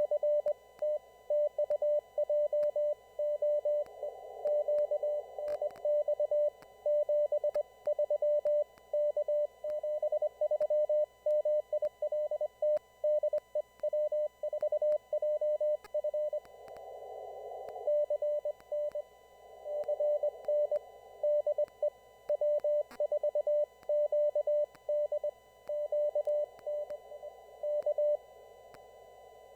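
Morse code (CW) on an amateur radio receiver: a single steady beep tone keyed on and off in short and long elements, sending continuously over band hiss heard through a narrow CW filter. About sixteen seconds in, the tone stops briefly and only the hiss is heard. These are stations in a formal CW traffic net sending their exchanges.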